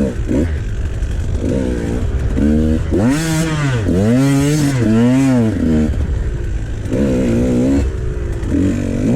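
Two-stroke KTM XC300 dirt bike engine revving up and down in repeated throttle blips, the longest swells about three to six seconds in, over a steady low rumble.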